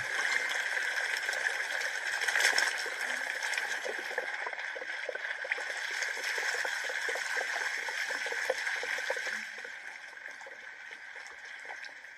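Water pouring in a steady stream onto a stone slab, splashing and gurgling, then dropping off sharply about nine and a half seconds in.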